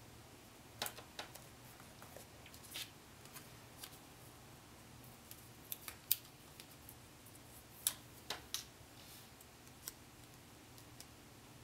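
Paper planner stickers being handled: short, sharp paper clicks and crinkles at irregular intervals as stickers are peeled from their sheet and pressed onto the page.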